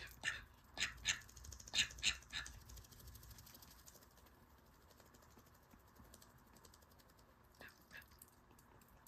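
White call ducks making faint, short, sharp sounds: about six in quick succession in the first couple of seconds, then two more near the end.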